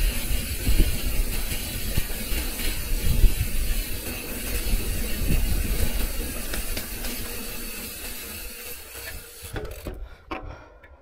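Mountain bike riding over rough trail: wind rushing over the action camera's microphone, with tyre rumble and knocks from the bike on the bumps. The noise eases off and then drops away abruptly near the end, leaving only a few faint knocks.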